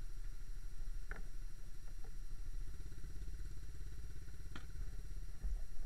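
Single-cylinder four-stroke engine of a 1978 Honda CT90 idling steadily while the bike stands still, with a couple of light clicks about a second in and near the end.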